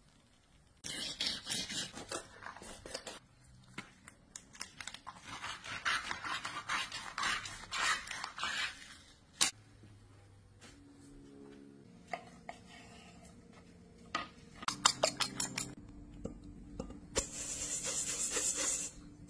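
Fillet knife scraping and cutting through a largemouth bass: bursts of rasping scrapes and clicks, with one sharp click about halfway through and a brief hiss near the end.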